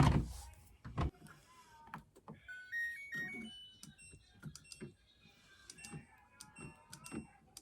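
Faint background music with a short stepped melody, over a thump at the start, another about a second in, and scattered light clicks and knocks.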